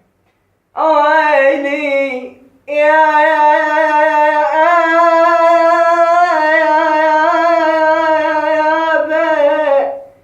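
A man singing solo without accompaniment: a short phrase about a second in, then after a brief break one long, wavering held note of about seven seconds that steps up in pitch partway through and fades out near the end.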